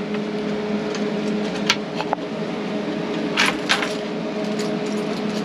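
A steady mechanical hum, with a few sharp clicks about two seconds in and two short rattling, rustling noises about three and a half seconds in.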